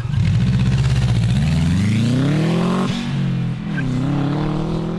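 Subaru boxer engine of a home-built race car revving up under acceleration, its pitch climbing steadily, dropping briefly about three and a half seconds in, then rising again and holding. The engine is down on turbo boost and pulls sluggishly; the builders suspect a failed turbo actuator.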